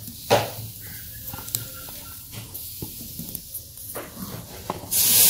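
Tomatillos being set down on a stone griddle: a sharp knock just after the start, then scattered light taps and clicks. Near the end a loud steady hiss starts suddenly.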